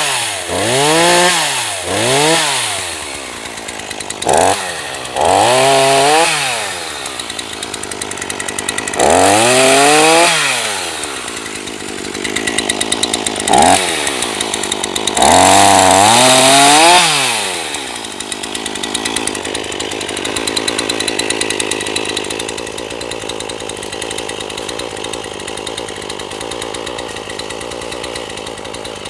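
Two-stroke gasoline chainsaw (NEO-TEC NH 841) revving up and back down repeatedly: several quick blips at first, then longer high-speed holds. In the last ten seconds or so it settles to a steady idle.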